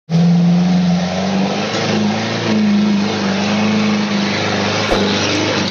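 Excavator's diesel engine running at high revs under load, its pitch shifting slightly up and down.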